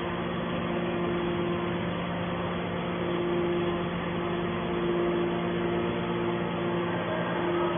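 The YDF-63 hydraulic scrap metal baler's hydraulic power unit running with a steady hum.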